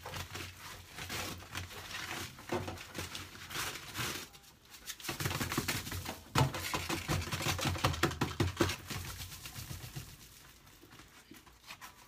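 Foil flex dryer duct crinkling and rustling as it is handled and worked loose at the wall connection, with scattered knocks; it grows louder about halfway through and fades near the end.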